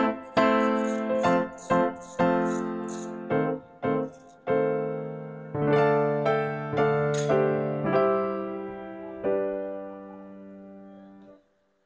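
Background piano music: a simple melody of struck, decaying notes, with short high hissing strokes on the beat during the first few seconds. The music fades and stops about eleven seconds in.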